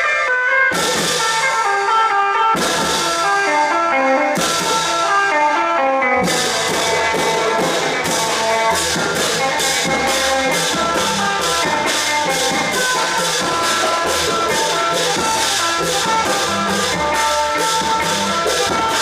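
Thai klong yao long-drum ensemble playing, with a stepping melody over drums. Cymbal-like crashes come every couple of seconds at first, then about six seconds in a steady quick beat takes over.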